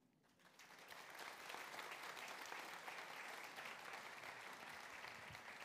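Audience applauding, faint and steady, starting about half a second in.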